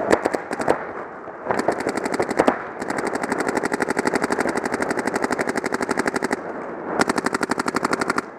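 Paintball markers firing rapid strings of shots. A few single shots come first, then a short string about two seconds in, a long unbroken string lasting several seconds, and another string near the end.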